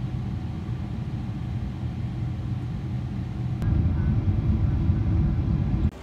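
Airliner cabin noise on approach: a steady low engine and airflow rumble with a low hum. It grows louder and rougher about three and a half seconds in, then cuts off abruptly near the end.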